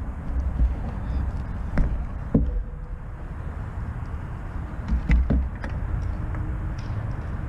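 Steady low rumble of wind on a GoPro microphone, with a few sharp knocks about two seconds in and again about five seconds in.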